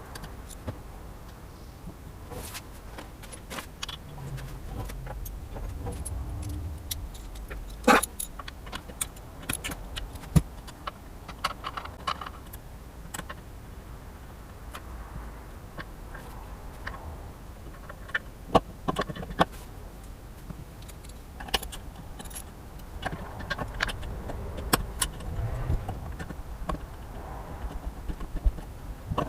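Irregular metallic clicks, clinks and knocks of hand tools and small metal parts being handled while a side-by-side's stator is swapped, the loudest clanks about 8 and 10 seconds in, over a steady low rumble.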